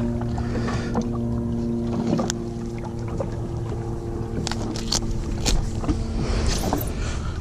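Personal watercraft (jet ski) engine running at a steady, even hum, with scattered clicks and knocks over it; the hum fades near the end.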